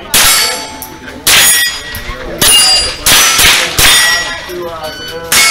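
Six .22 rimfire rifle shots spaced about a second apart, each followed by the metallic ring of a steel target plate being hit.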